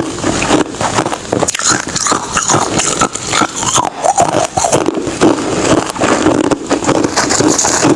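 Close-miked crunching of ice being bitten and chewed, a dense unbroken run of crisp crunches.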